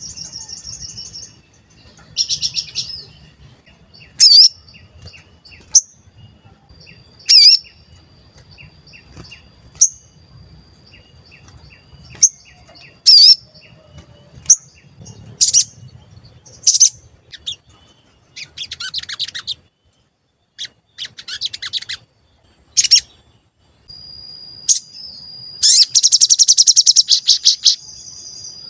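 A sogon songbird in full song: sharp, high 'cuit cuit' chirps and whistled notes with short pauses between them, a few quick buzzy trills, and near the end a long, loud rattling trill over a thin held whistle. This is the call used as a lure to set other sogon birds singing and agitated.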